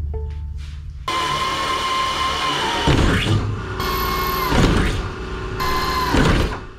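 Power drill running in three bursts, the first the longest, its whine holding steady and then sagging as each burst ends.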